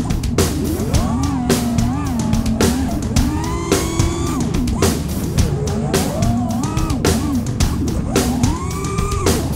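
Music with a steady drum beat, bass and a bending lead melody.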